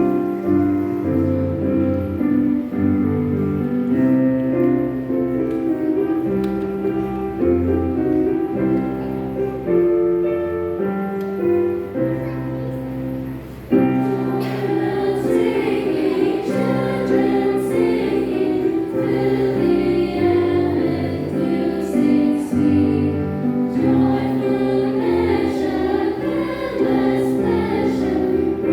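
A junior church choir singing a hymn with instrumental accompaniment. The first half holds steady instrumental notes over a bass line. The children's voices come in suddenly about halfway through and carry on singing.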